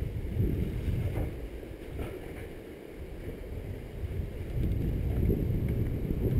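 Wind buffeting a moving body-worn camera's microphone, with a low rumble from travelling fast along a muddy woodland trail. It eases off in the middle and builds again near the end.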